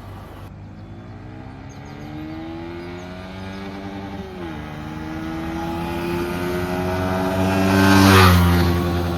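Stock exhaust of a Yamaha R15 V3's 155 cc single-cylinder engine pulling hard under acceleration: the pitch climbs, drops at a gear change about four seconds in, then climbs again, growing louder to a peak near the end before the revs fall.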